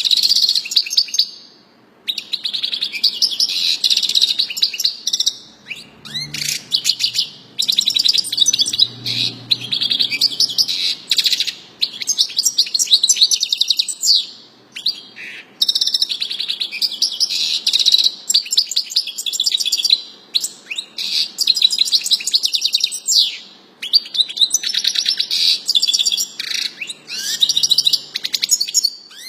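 A songbird singing long, fast-trilled phrases of high chirps and twitters, broken by short pauses between songs.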